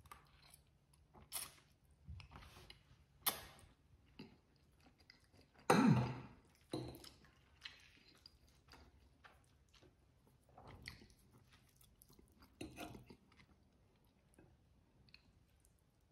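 A person eating spaghetti: faint chewing and mouth sounds, with small sharp ticks of a fork against a plate. There are a few louder bursts, the loudest a little under halfway through.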